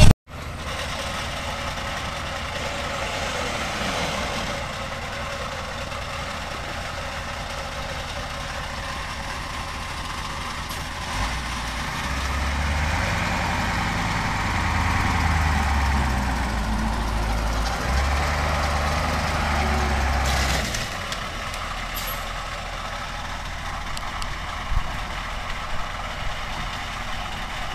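Bus engine running on the road. About eleven seconds in it grows louder and labours with a low hum that steps up and down in pitch, then drops back to a steady run about twenty seconds in. A few light knocks come near the end.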